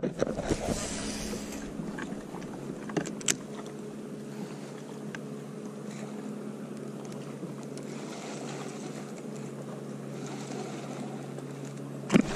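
Boat motor running steadily, a low even hum with a few sharp knocks, one near the start and one about three seconds in.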